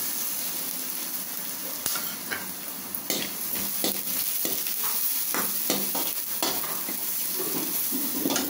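Coarsely ground dried red chilli, black pepper and garlic sizzling in hot oil in a steel kadai, with a steady hiss. A steel ladle stirs the mix, scraping and clicking against the pan bottom at irregular moments.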